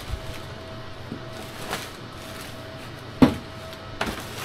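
Heavy metal-cased LG RESU16H Prime battery module being walked out of its box and set down, with a few light knocks and one sharp knock about three seconds in, then a smaller one.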